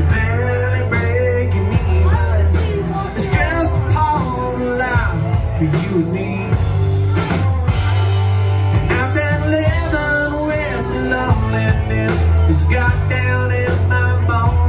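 Live rock band playing through a PA: electric guitars and drums, with a lead vocalist singing over steady low bass notes.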